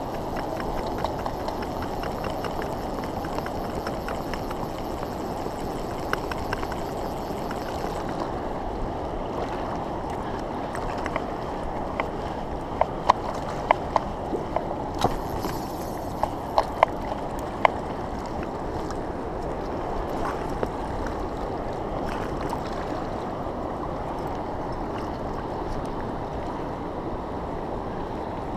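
Steady rush of a strong river current around the wading angler. About halfway through there is a run of sharp clicks.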